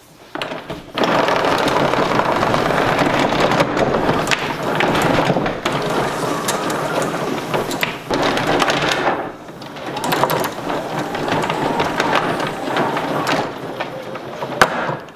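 High-pressure hose winding back onto the auto-retracting reel of a wall-mounted electric pressure washer: a steady rattling, rubbing run with scattered clicks. It comes in two spells, broken by a short pause a little past the middle.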